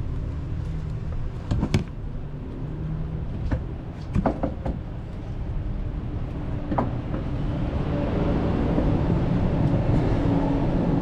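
Several metal knocks and clunks as a heavy DD15 oil/coolant module is handled against the engine block and worked onto its locating dowels: one about two seconds in, a quick cluster a few seconds later, and another near seven seconds. Under them is a steady low mechanical rumble that grows louder for the last few seconds.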